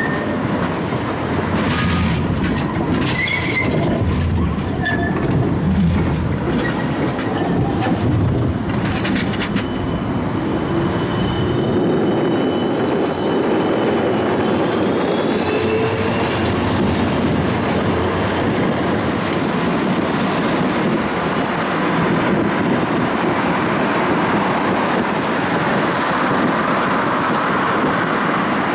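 Siemens Combino tram running on its tracks, heard from inside the car: a steady rumble of wheels on rail, with clicks over the rail joints in the first ten seconds. A thin high wheel squeal comes in at times, and a faint rising whine follows in the middle.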